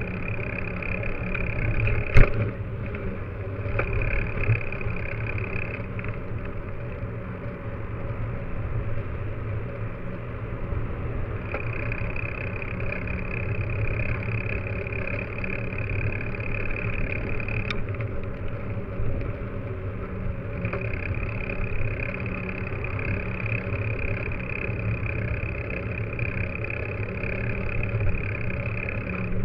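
Mountain bike rolling over pavement, heard from a camera on the front fork: steady tyre and road rumble, with a higher whir that comes and goes in long stretches. A sharp knock about two seconds in.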